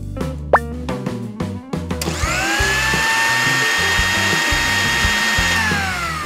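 Toy blender's small battery motor switched on about two seconds in: a high whine that climbs quickly to a steady pitch, then falls in pitch as it winds down near the end.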